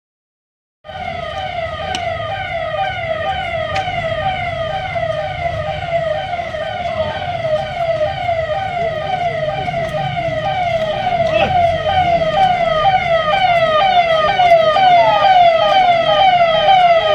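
Police vehicle siren starting about a second in, a fast repeating wail of two to three sweeps a second over a low rumble, growing louder toward the end.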